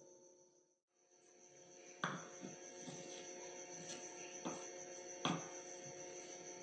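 Faint steady electrical hum, broken by a brief dropout about a second in, then a few soft knocks of a metal spoon against an aluminium pot.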